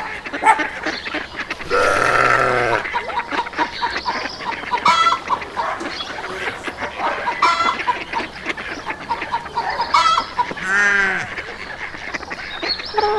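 A string of separate farm-animal calls, mostly fowl, each lasting about a second and coming a few seconds apart.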